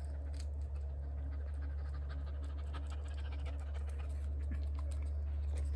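A dog panting in quick, short breaths over a steady low hum.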